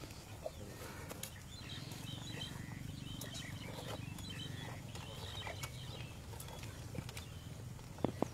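Asian elephants eating corn cobs: scattered crunches and cracks, with a sharper crack near the end, over a low steady rumble. Faint bird chirps come and go in the middle.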